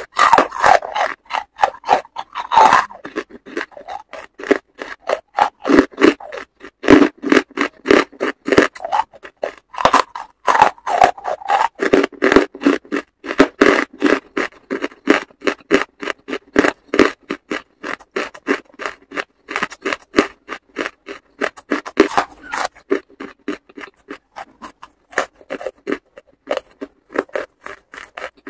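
Close-up chewing of charcoal chunks: a rapid run of dry, gritty crunches several times a second, softer and sparser near the end.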